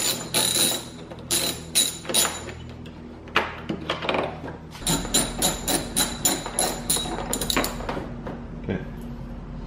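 Ratchet with a T30 Torx bit clicking as the headlight's mounting bolts are undone, in two runs of metallic ticks: one in the first couple of seconds and a faster one of about four ticks a second from about five to eight seconds in.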